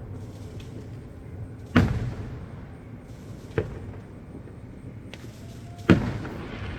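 Distant fireworks shells bursting: three booms, the loudest about two seconds in, each trailing off into a rumble.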